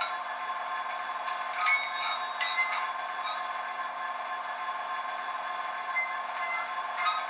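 Model-railway sound decoder playing a diesel engine idling through a tiny speaker, thin and steady with no deep bass. Several short metallic clicks and clanks sound over it, the loudest about two seconds in and more near the end.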